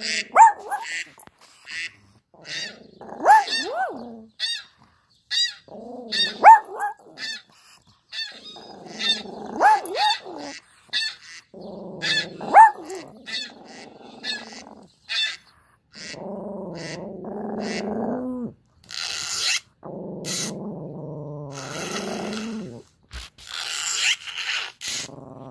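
Dog sounds played back through a laptop speaker: about five barks a few seconds apart, then two long growls in the second half, over a steady run of sharp clicks.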